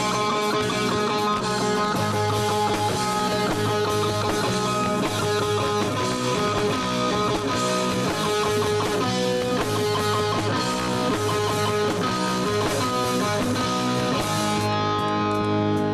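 Live rock band playing, with electric guitar and drums, at a steady loud level. The bright high end drops away near the end while the guitar notes ring on.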